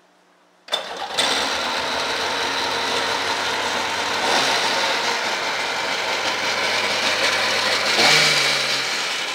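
Sea-Doo RX 951 personal watercraft's two-stroke twin engine cranking briefly and firing up about a second in, then running rough and loud, revved briefly near the middle and again near the end.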